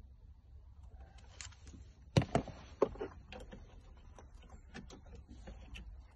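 Handling noises in a van cab: three sharp knocks a little past two seconds in, then a run of light scattered clicks as a car key is handled and brought to the ignition.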